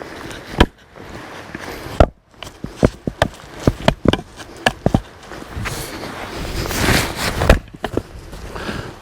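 Axe chopping into the outer sapwood of a thick pine round to split firewood: two sharp, loud strikes, then a quicker run of lighter knocks. Near the end comes a longer scuffing swell that finishes in another sharp hit.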